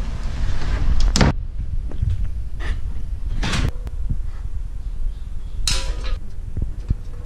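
Knocks and rubbing from a hand-held GoPro camera being handled, with one sharp knock about a second in, over a steady low rumble.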